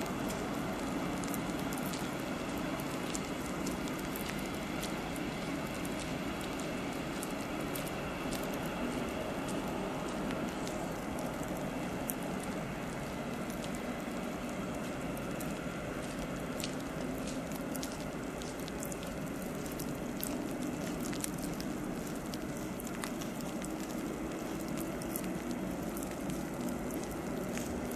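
Rain falling steadily, pattering with many small crackling drop ticks over a steady low rumble.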